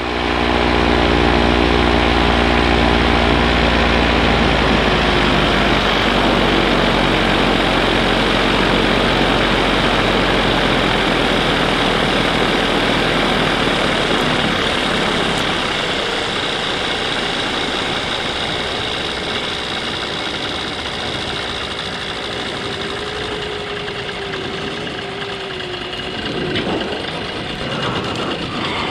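Paramotor engine and propeller running in flight, with its pitch falling over the first few seconds as the throttle comes back during the descent. After that, a steady rush of air dominates over the engine.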